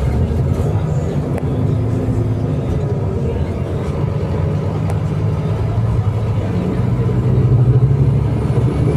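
Scania K310IA bus engine running steadily, growing louder near the end.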